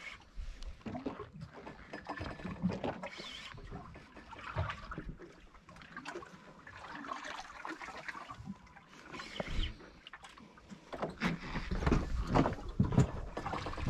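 Sounds aboard a small fishing boat at sea: water sloshing against the hull with irregular knocks and clatter. A low rumble, like wind on the microphone, swells near the end.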